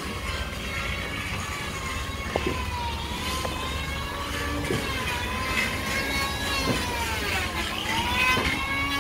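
A motor whining steadily over a low hum, its pitch wavering, sagging about three-quarters of the way through and then climbing back, with a few faint knocks.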